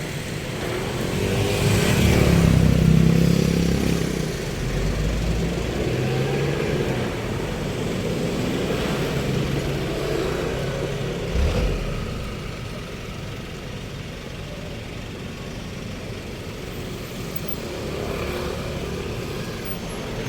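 Street traffic: motor vehicles running past, one passing close and loud about two to four seconds in, with a brief low thud near the middle.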